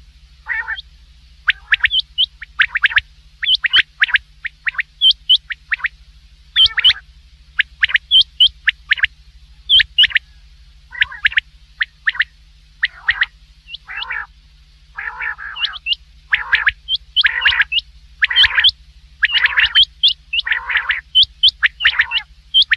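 A quail calling over and over: clusters of short, sharp, high notes, many with lower rasping notes, over a steady low hum.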